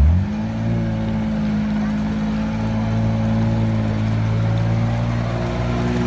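Off-road 4x4's engine revved up sharply and then held at high, steady revs as the vehicle churns through deep mud, the note rising slightly near the end.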